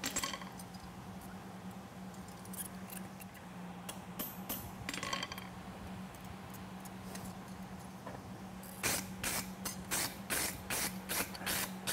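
Light metal clinks as a pair of mild-steel hot fitting tongs is handled at the anvil, over a steady low hum. About nine seconds in, a quick run of scraping strokes, three or four a second, as a hand tool is worked across the steel of the tongs.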